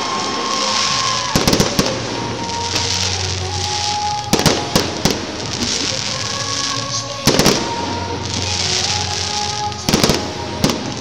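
Aerial fireworks shells bursting with sharp bangs, a single one or a quick cluster every few seconds, over a steady high hiss.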